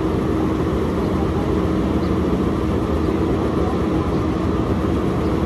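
Excavator's diesel engine running steadily under load, with a constant hum held at one pitch.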